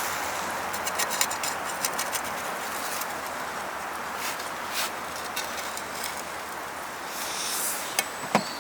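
A few light clicks and knocks of small hard objects over a steady hiss, ending with a sharp ringing clink near the end.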